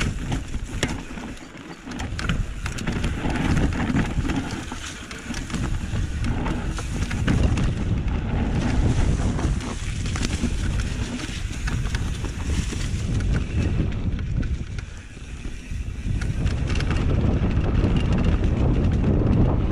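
Wind buffeting the action camera's microphone and tyres rumbling over a dirt trail as a downhill mountain bike descends at speed, with sharp rattles and clicks from the bike over bumps. The rush eases briefly twice, around two seconds in and around fifteen seconds in.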